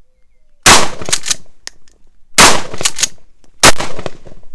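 Three rapid 12-gauge shotgun shots from a Mossberg 590 Shockwave pump-action, about a second and a half apart, each a very loud blast followed by quick echoes. The gun is loaded with Aguila Minishell short shells.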